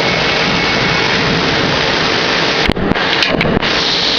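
Machine tool running while machining a part: a loud, steady noise with a faint whine, broken by a few sharp clicks about three seconds in.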